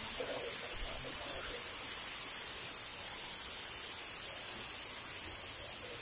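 Heavy monsoon rain falling in a steady, even hiss.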